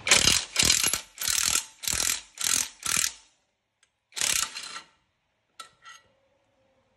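Hand socket ratchet clicking through a run of quick strokes, about two a second, then one more stroke after a short pause, as bolts are loosened to take off a scooter's exhaust.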